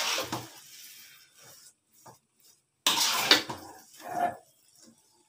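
A metal spatula scraping a wok and stirring thick, sticky biko (glutinous rice in coconut milk and sugar). The scraping comes in two strokes, one at the start and one about three seconds in.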